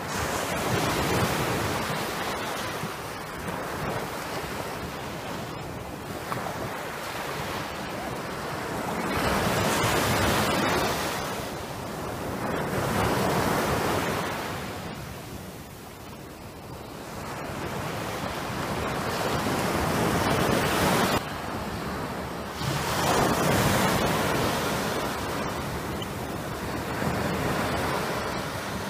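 Small surf breaking and washing up on a sandy beach, the rush of water swelling and fading every few seconds as each wave comes in.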